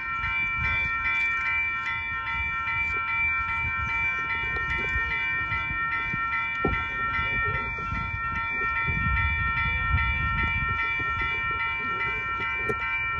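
Railroad crossing warning bell ringing as the crossing activates and the gates come down, with a rapid, even repeat and a low rumble beneath it.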